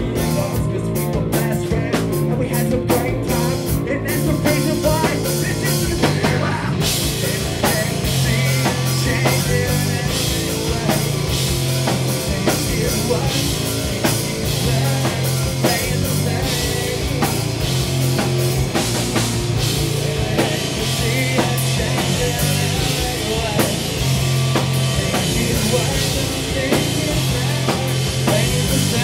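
Live rock band playing, with a drum kit driving it; about seven seconds in the band's sound becomes fuller and denser.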